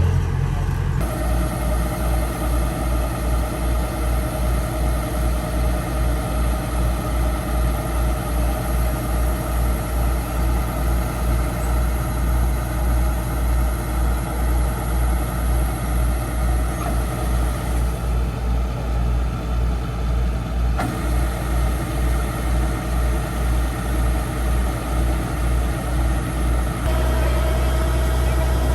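Diesel engine of a Kubota rice combine harvester running steadily with a regular pulsing about twice a second; the sound changes abruptly about a second in and again near the end, where it turns steadier and a little louder.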